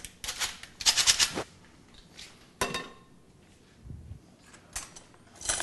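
Metal hand-crank flour sifter rasping in two short bursts, then a single sharp clink of metal on a ceramic bowl about two and a half seconds in, followed by a few faint light knocks.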